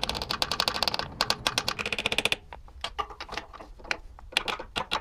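Rapid metal-on-metal tapping of a flat-blade screwdriver against the lip of a 1970 Honda CL450's clutch-side engine case cover, giving a hollow drum-like sound as he tries to break the gasket seal, which is still holding. The taps come in a fast run for about the first two and a half seconds, then slow to scattered single taps.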